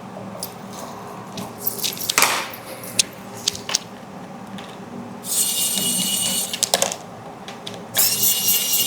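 Hand work on a Prusa MK4S 3D printer's back plate and fasteners: scattered sharp clicks and knocks, then two spells of dense rattling, one about five seconds in and one near the end.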